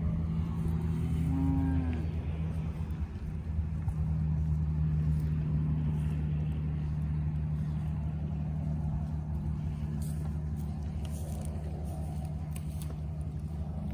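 A cow gives a short moo about a second in, over a steady low motor hum.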